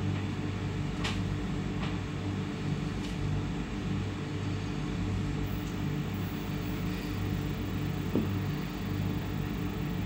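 Steady electrical hum of a stationary electric multiple unit's onboard equipment, heard inside the passenger compartment, with a few faint clicks.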